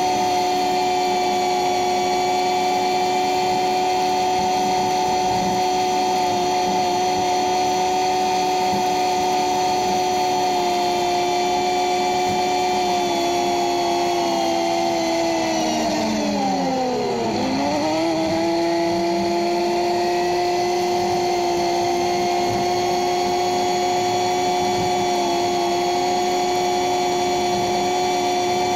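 CFMoto UForce 600 side-by-side's engine and drivetrain running at a steady cruise with a high whine. Just past halfway the pitch falls sharply as the revs drop, then climbs back to the same steady pitch a few seconds later.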